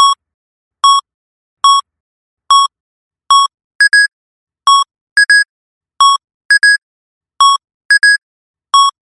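Electronic level-crossing warning bell ringing in short, evenly spaced dings, a little over one a second. About four seconds in, a second, higher-pitched crossing bell joins, ringing out of step with the first.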